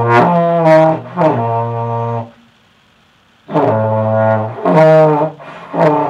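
Beginner playing a tenor trombone in first position: short held notes that switch between low B flat, his natural note, and the F above it. There is a pause of about a second in the middle.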